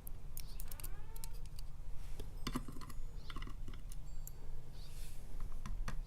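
Small metal clicks and taps of tools working the pins and springs out of a disassembled padlock's core, irregular, with a few quick clusters of ticks. A steady low hum runs underneath.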